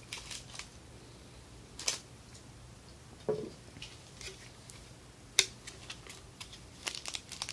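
Scattered plastic clicks and light knocks from handling and prying at a small black plastic DIY 18650 power-bank case. One sharp click about five and a half seconds in is the loudest, and a quick run of small clicks comes near the end.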